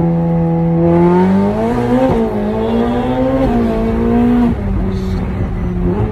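Ferrari 488 Pista's twin-turbo V8, fitted with catless downpipes, pulling hard under acceleration, heard from inside the cabin. Its note climbs and drops sharply in pitch about two, three and a half and four and a half seconds in, as it shifts up.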